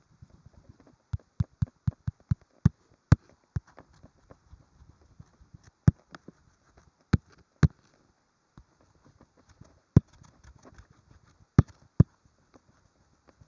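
Sharp, irregular taps and clicks of a stylus striking a tablet screen while drawing, some coming in quick runs of several a second and others spaced apart.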